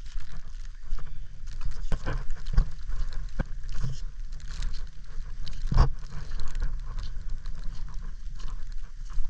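Steady low rumble of wind on the microphone, with irregular knocks and thumps, the loudest nearly six seconds in.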